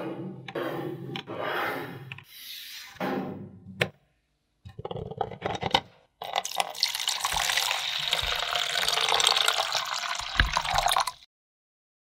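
Water pouring or running steadily for about five seconds, starting about six seconds in and cutting off suddenly. A few sharp clicks come just before it.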